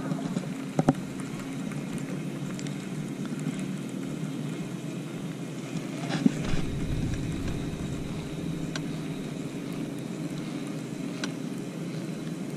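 Steady hum of a bass boat's bow-mounted electric trolling motor, with a few light clicks scattered through it.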